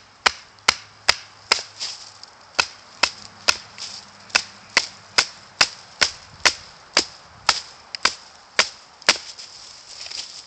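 A wooden baton tapping the spine of a Habilis Bushtool, a 5-inch carbon-steel bushcraft knife, driving its blade down into a log to split it. Light, sharp taps about two a second with a bright ring, pausing briefly twice.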